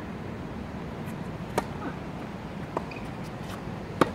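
Tennis ball being hit back and forth in a rally: three sharp pops of ball on strings and court, the loudest near the end as the near player strikes a forehand, over a steady outdoor hum.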